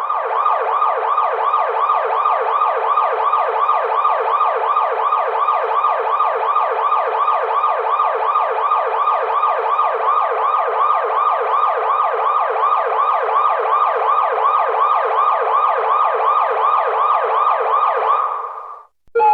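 Police car siren in fast yelp mode: a rapid, evenly repeating rise and fall in pitch, about four to five cycles a second. It stops shortly before the end.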